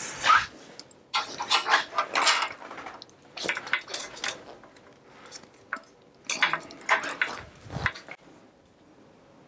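Metal hand tools clinking and clattering against old mountain-bike parts at the crankset during disassembly, in irregular bursts, with a dull knock near the end.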